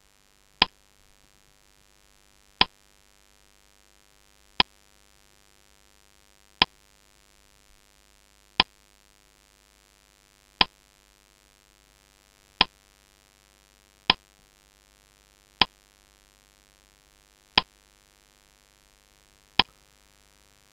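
Quiz countdown-timer sound effect: a single sharp tick about every two seconds, eleven in all.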